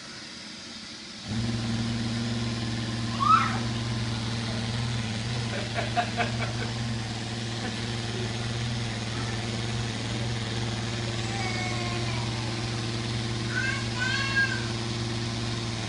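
Roomba robot vacuum running with a steady low motor hum that starts abruptly about a second in. A few brief high-pitched calls rise and fall over it.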